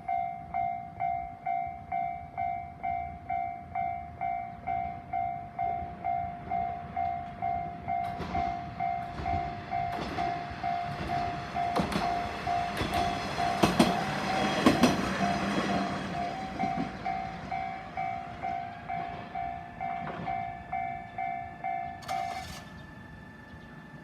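Level-crossing warning bell dinging steadily, about twice a second, while a diesel railcar passes. The wheels click over the rail joints and the train is loudest midway through; the bell stops shortly before the end.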